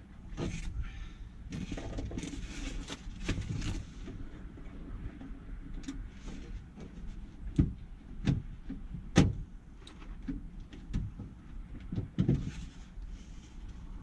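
Handling noise from work on a Fiat Scudo van door with its trim panel pulled back: a few seconds of rustling, then sharp clicks and knocks from inside the door shell as the door lock latch is worked at, the loudest about nine seconds in.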